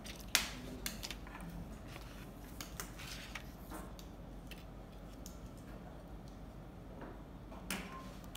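Sparse, light clicks and taps from a pointed tool and a mother-of-pearl strip being handled on a lacquered box. The sharpest click comes about a third of a second in, with a small cluster a few seconds in and another near the end.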